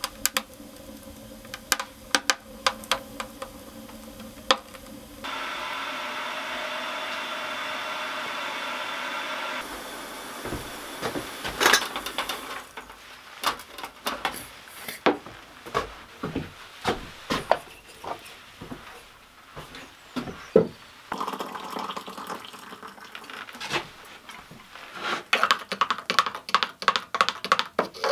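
Kitchen handling sounds: scattered knocks and clicks of a metal kettle, a wooden mug and a portable gas camping stove being handled. About five seconds in, a steady hiss begins and runs for roughly four seconds before cutting off.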